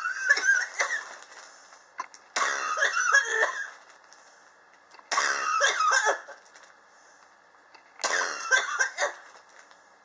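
A person coughing in four fits about two and a half seconds apart, each a cluster of coughs lasting about a second that starts suddenly: a chronic cough that has persisted for years.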